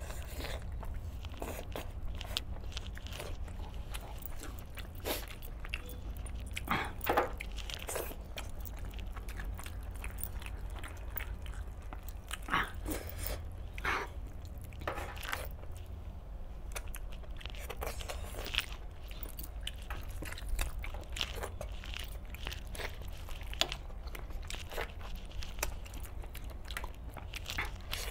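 Close-miked eating: a person biting and chewing pieces of whole desi chicken cooked in green masala gravy, eaten by hand, with irregular short crunching and tearing sounds.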